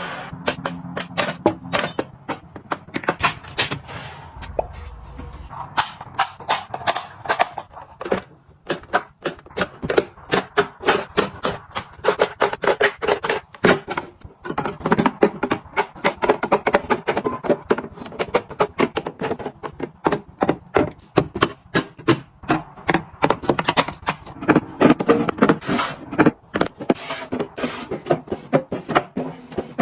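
A dense, irregular run of clicks, taps and knocks with some rustling, several a second, as containers and food packages are handled, opened and set down while a kitchen and refrigerator are restocked and organized.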